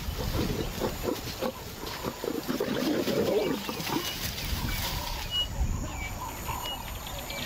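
A lion and lioness mating and growling at each other in a run of rough, pulsing growls and snarls, loudest about three seconds in and lighter in the second half.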